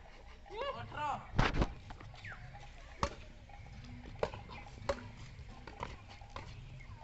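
Badminton rackets striking a shuttlecock during a rally: a sharp pop every second or so in the second half. A brief shout and a loud burst come about a second in.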